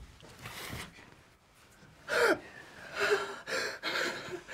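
A man sobbing and gasping in fear: a faint breath, then a cry with falling pitch about two seconds in, followed by choked, broken sobs.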